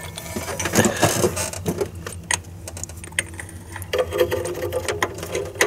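Scattered light metallic clicks and knocks as a new engine coolant temperature sensor, held in a socket on a short extension, is worked by hand onto its threads in the engine. A steady low hum runs underneath.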